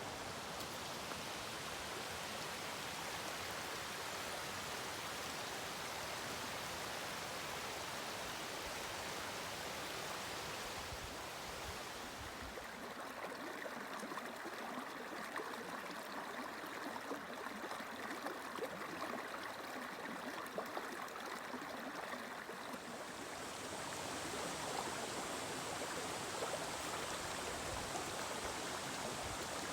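Mountain stream flowing, a steady rush of water that shifts in tone twice, about twelve seconds in and again near twenty-four seconds.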